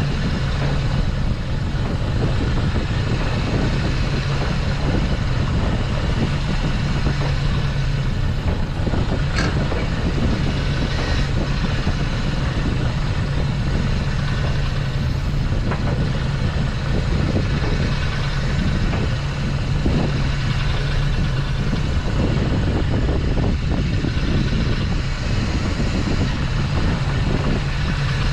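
Small fishing boat's engine running steadily at low revs, an even low hum, with a single faint click about nine and a half seconds in.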